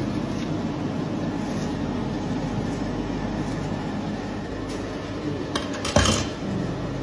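Steady low hum throughout, and about six seconds in a single sharp knock, a butcher's knife set down on a plastic cutting board.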